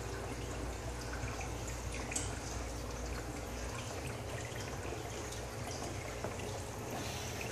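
Aquarium filter circulating water: a steady trickle with small drips, over a low steady hum.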